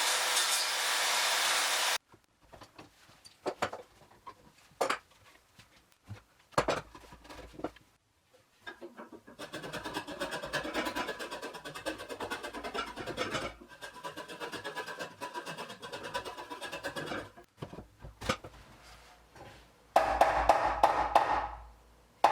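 A power tool runs steadily for about two seconds and cuts off suddenly. Sharp knocks of wood being handled follow, then a steady scraping noise on wood for about eight seconds, and more knocks.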